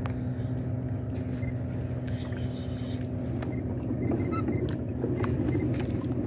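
Steady low drone of a boat engine running, with faint ticking from a spinning reel being cranked as a fish is reeled in, more in the second half.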